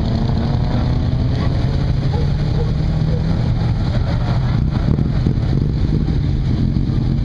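Engines of classic rally sedans running steadily at low revs as the cars roll slowly past.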